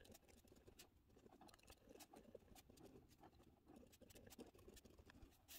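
Faint scratching and light ticking of a pen writing on journal paper, near silence otherwise.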